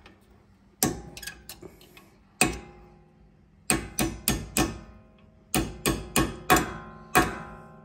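A hammer tapping a pad retaining pin into a four-piston Brembo front brake caliper: about a dozen sharp metal-on-metal strikes, each ringing briefly, in short quick runs. The pin is driven until the strike sound changes to a solid one, the sign that it is fully seated.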